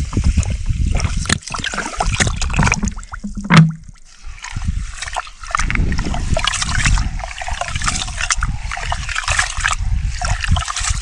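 Water poured from a plastic bottle into an aluminium pressure cooker of raw rice, then a hand swishing and rubbing the rice in the water to wash it. A short loud bump comes about three and a half seconds in.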